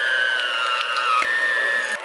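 Electric hand mixer running with its beaters in thick cream cheese, butter and powdered sugar. The motor's whine sags in pitch, then steps back up a little past halfway, as the beaters labour in the cream cheese, which is not fully softened.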